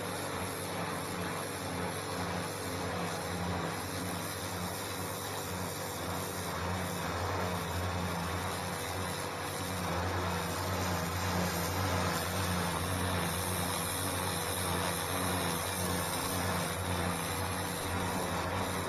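Stihl pressure washer running steadily, its motor and pump humming under the hiss of the water jet striking the patio paving; slightly louder about halfway through.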